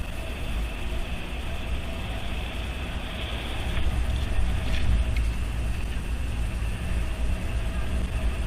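Steady low rumble of wind and road noise on a moving action camera's microphone during a ride.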